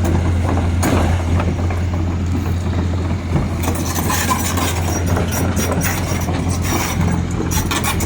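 Excavator's diesel engine running with a steady low drone, with scattered short knocks and clanks over it.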